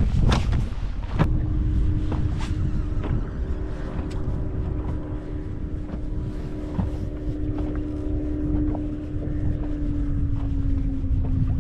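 Electric trolling motor running with a steady whine, coming on just after a sharp click about a second in and dropping slightly in pitch near the end. Wind rumbles on the microphone.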